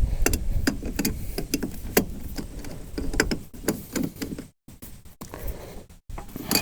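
Hand tools clicking against the truck's battery terminals, a run of short sharp clicks about three a second, while loosening a corroded terminal connection.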